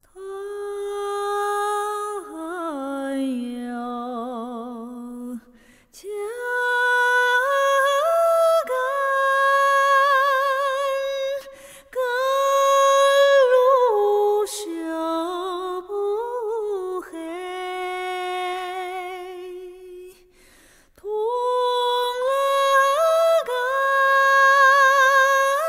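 Soundtrack music: a slow, wordless melody sung by a female voice, long notes held with vibrato, in several phrases with short breaks between them.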